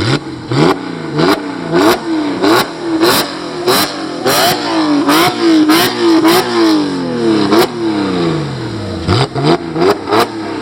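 Porsche 911 997.1 Carrera's flat-six engine through an aftermarket Mamba exhaust, revved in a long series of quick throttle blips, each a brief rise and fall in pitch, with a sharp crack from the exhaust at many of them.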